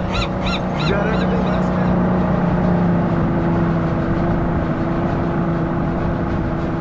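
Boat engine running steadily as the boat gets under way, its pitch rising slightly about a second in and then holding. A fast series of honking calls, about three a second, ends about a second in.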